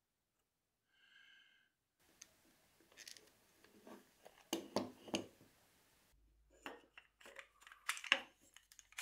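Light clicks and knocks of small wooden clamp parts, steel washers and metal spring clamps being handled and fitted together on a wooden workbench. After a near-silent start the clicks begin about two seconds in and come in irregular clusters.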